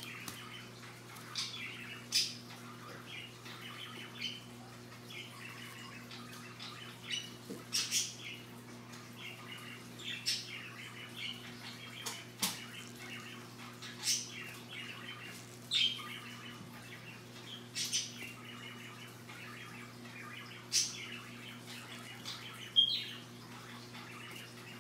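Scarlet macaw preening, drawing feathers through its beak: short scratchy zips about every two seconds over a soft rustle. There is one sharper, louder click near the end, over a steady low hum.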